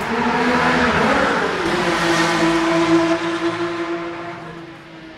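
Renault RS01 Formula 1 car's 1.5-litre turbocharged V6 running loudly, its revs rising about a second in and then held steady before the sound fades away near the end.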